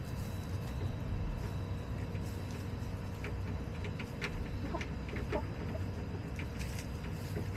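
Backyard hens foraging close by: scattered short, sharp ticks of beaks pecking at the wood-chip litter, growing more frequent after a few seconds, with a few soft clucks over a steady low rumble.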